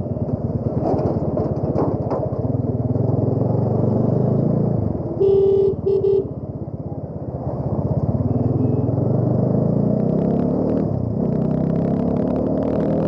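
Bajaj Dominar 400's single-cylinder engine running under way, its pitch rising and falling as the bike speeds up and eases off. A horn beeps twice, briefly, about five and six seconds in.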